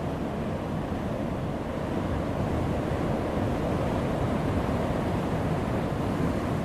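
Heavy ocean surf breaking on a rocky shore: a dense, low, steady rush of water that swells slightly after a couple of seconds.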